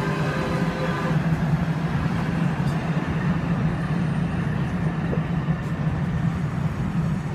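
Steady low vehicle rumble, with the electric whine of a departing DART light-rail train fading out about a second in.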